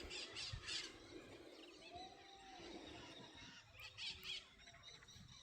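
Faint outdoor ambience with a few soft, brief noises and one short, faint call about two seconds in.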